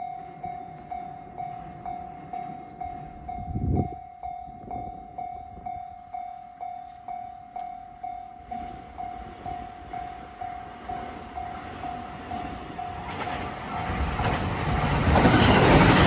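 Level-crossing warning bell ringing in an even electronic ding, about one and a half strikes a second, with a brief low rumble about four seconds in. From about thirteen seconds a 521-series electric train comes up and passes close by, its running noise swelling loud and drowning the bell.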